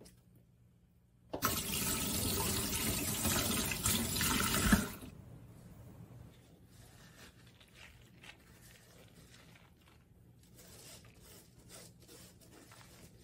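Water running from a kitchen tap into a stainless steel sink for about three and a half seconds, then shut off abruptly; afterwards only faint small handling sounds.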